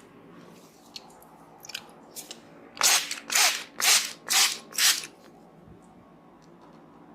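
Hands rubbing and scrunching hair in a head massage: five crunchy strokes about half a second apart, starting a few seconds in, after a few faint clicks.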